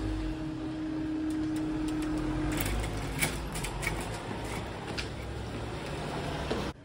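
Level-crossing warning sounder holding a steady tone that stops about two and a half seconds in, as the barriers finish rising. Cars then rumble across the crossing, with a run of light clicks and knocks.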